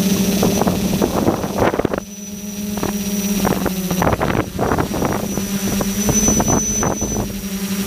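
Tricopter's three SunnySky 1400KV brushless motors and propellers buzzing steadily in flight, picked up by the onboard camera with gusts of wind buffeting the microphone. The sound dips briefly about two seconds in.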